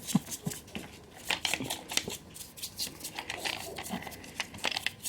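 Irregular clicks, taps and scrapes of metal engine parts being handled and worked on by hand.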